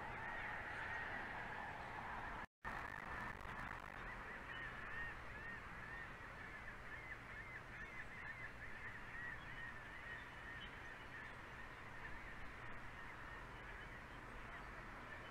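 A faint, continuous chorus of wild bird calls, a busy warbling chatter over a steady low hum, with a split-second dropout in the audio about two and a half seconds in.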